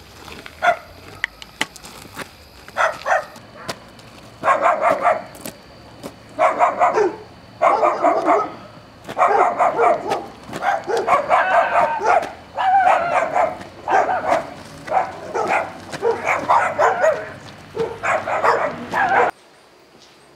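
Dog barking repeatedly and loudly: a few scattered barks at first, then quick runs of barks from about four seconds in, cutting off suddenly near the end.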